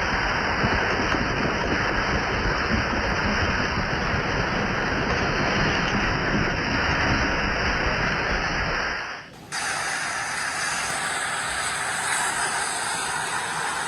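Steady rushing noise of floodwater. About nine seconds in it breaks off briefly and gives way to a thinner, hissier rush.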